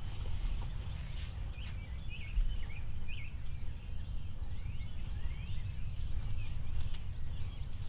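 Small songbirds chirping with many quick, short twittering calls, over a steady low rumble.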